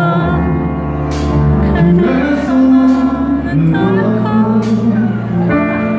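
Live band music: a male voice singing over electric guitar and a bass line, with sharp hits about once a second.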